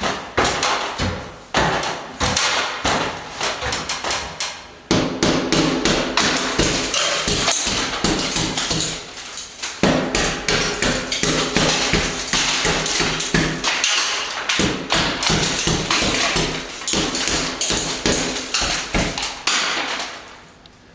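Rapid, repeated tapping and knocking of a hammer breaking into a lath-and-plaster ceiling to open a hole.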